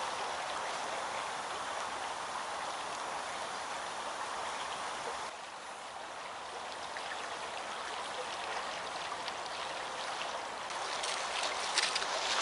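Steady rushing of a shallow stream flowing, with a few sharp clicks near the end.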